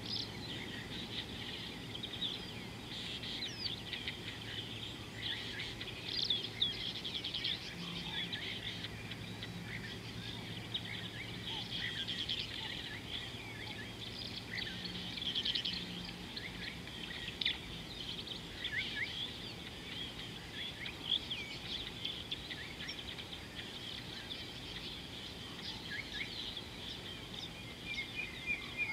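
Chorus of many small birds chirping and twittering without a break. Under it runs a low steady hum that fades out about halfway through.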